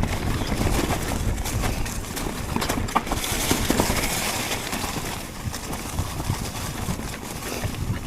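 Mountain bike rattling and knocking over rough trail, with wind rumbling on the microphone.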